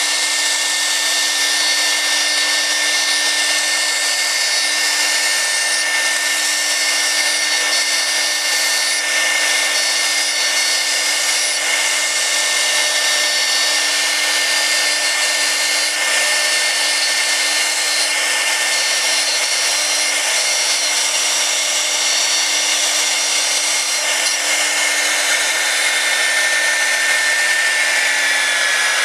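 CNC router spindle running at speed as its bit cuts acrylic sheet: a steady whine over a rushing cutting noise, whose pitch sags slightly near the end.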